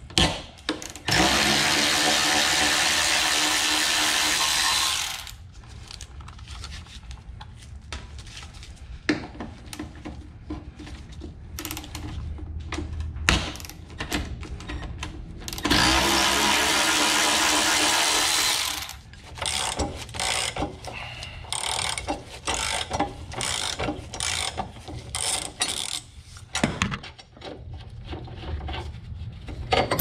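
Cordless power ratchet running in two bursts, about four seconds and then about three seconds long, spinning a bolt under the car. Between and after the bursts come scattered clicks and clanks of hand tools on metal.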